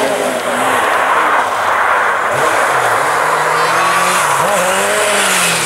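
Classic rally car's engine revving hard as it drives through a gravel bend and passes close, the pitch dipping and climbing again about halfway through, with a hiss of gravel and tyre noise underneath.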